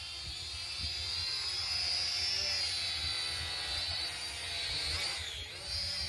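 Small toy quadcopter drone's motors and propellers whining high as it lifts off and climbs. The pitch wavers, drops briefly near the end and comes back up.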